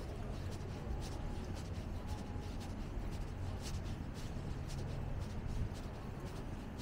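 City street ambience on foot: a steady low rumble of traffic with frequent short scuffs and clicks close to the microphone.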